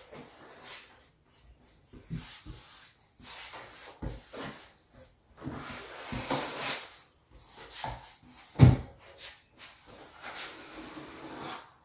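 Paintbrush strokes swishing back and forth across a wooden table top as a coat of finish is brushed on, with one sharp thump a little past two-thirds of the way through.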